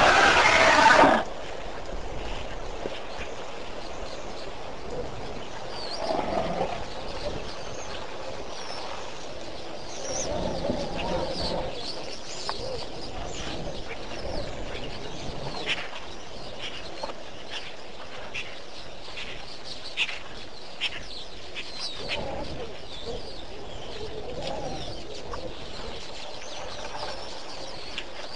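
Wild birds chirping and calling, many short high notes throughout, with a loud rough burst of sound in the first second and a few lower, softer patches of sound in between.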